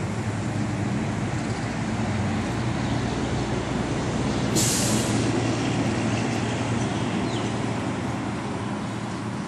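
Steady low mechanical rumble from a nearby vehicle, with a sudden sharp hiss about halfway through that fades within half a second.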